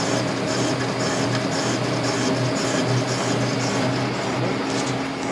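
Horizontal boring mill running, its boring bar taking a heavy cut through weld filler in the bore: a steady machine drone with a low hum and a few held tones over a hiss.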